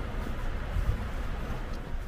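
Street ambience: a steady low rumble with a faint hiss above it and no distinct events.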